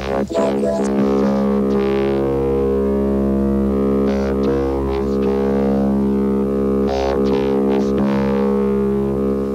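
Electronic synthesizer drone: one steady low tone rich in overtones, held without a break, with a couple of short hissy swells over it.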